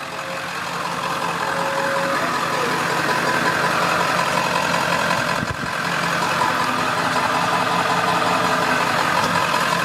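Ford F450's 7.3-liter V8 turbo diesel idling steadily.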